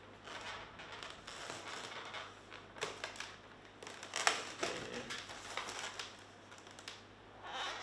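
Twisted latex balloons being handled: irregular rubbing, creaks and small taps, with a marker pen drawing on the balloon surface. One sharp tick about four seconds in is the loudest.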